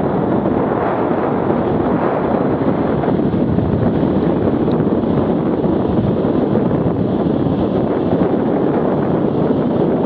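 Arctic Cat 650 H1 ATV engine running at speed, largely buried under steady wind buffeting on the microphone.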